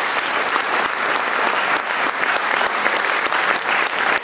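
An audience applauding steadily: many people clapping at once in a hall.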